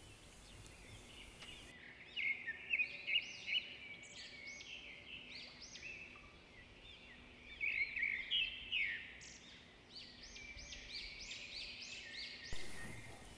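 Small birds chirping: many short, quick, high calls, faint, thickest in two spells near the start and the middle.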